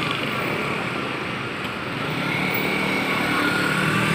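Street traffic noise with motorcycle engines running steadily, an even hum with no sharp events.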